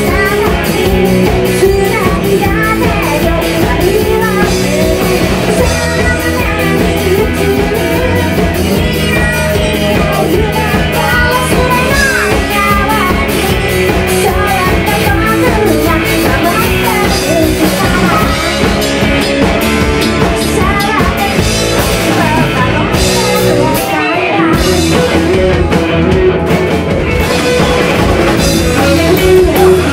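Live rock band playing loudly: a woman singing lead over electric guitar, bass guitar and drum kit. The bass and kick drop away briefly about three-quarters of the way through, then come back in.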